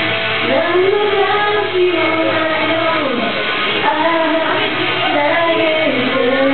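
A woman singing a Japanese pop song into a handheld microphone over a karaoke backing track, holding a long note near the end.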